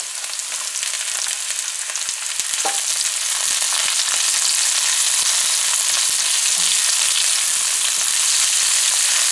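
Sliced bell peppers, carrots and onions sizzling in hot oil in a nonstick wok as they are stirred with a silicone spatula, with a few faint taps of the spatula. The sizzle grows louder about three seconds in and then stays steady.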